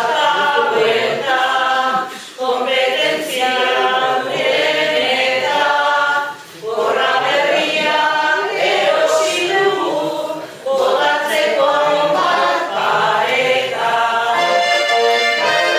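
A group of voices singing Basque koplak together in sung phrases, with short breaks for breath about every four seconds.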